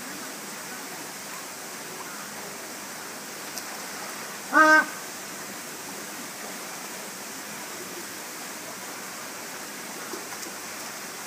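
Steady rush of running water around a penguin pool, broken once, about four and a half seconds in, by a short, loud pitched call.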